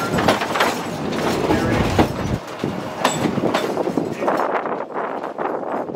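Durango & Silverton narrow-gauge passenger car rolling along the track: wheels clicking and knocking over the rail joints, and the car rattling. The high rushing hiss fades about four seconds in.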